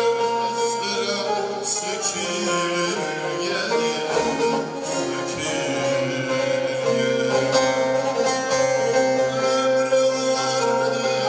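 Long-necked bağlama (Turkish saz) strummed and plucked, its drone strings ringing under the melody, while a man sings a Turkish folk song.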